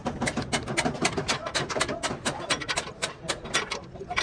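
Rapid, uneven hammering on metal, several strikes a second, over a low steady hum.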